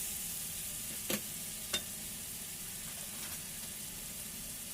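Sausage, onion and tomato sizzling steadily in a frying pan, the tomatoes cooked down soft, with two sharp knocks of the stirring spoon on the pan a little after a second in.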